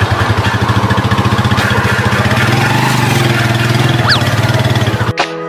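Motorcycle engine of a tricycle (motorcycle with passenger sidecar) running steadily with a fast pulsing beat, heard from inside the sidecar. About five seconds in it cuts off abruptly to guitar music.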